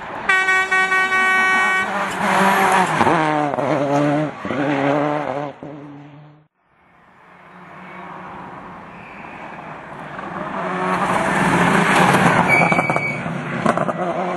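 Rally car engine at high revs, its pitch rising and dropping through quick gear changes, fading away about six seconds in. Then another rally car approaches, growing louder through the second half.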